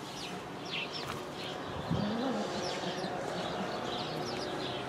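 Small birds chirping, many short quick chirps scattered throughout, with a brief low rise-and-fall sound about two seconds in.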